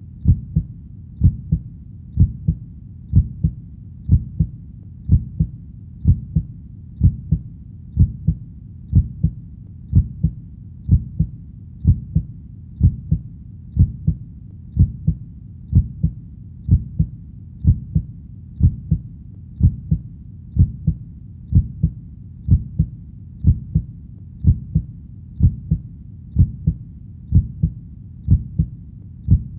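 Heartbeat sound: steady, low double 'lub-dub' beats repeating about once a second.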